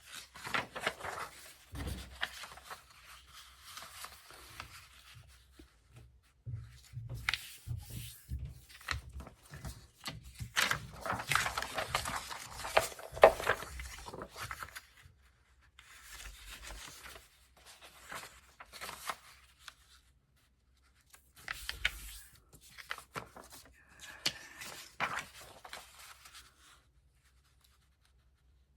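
Sheets of craft paper being handled and shuffled: rustling and sliding in irregular bursts, with light knocks and short pauses, busiest about halfway through.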